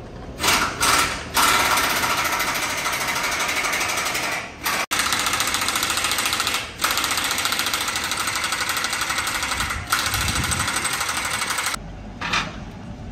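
Power impact wrench rattling as it runs in bolts on a large bolted ring flange. It starts with two short bursts, then runs in long stretches of a few seconds each with brief pauses between, and stops near the end.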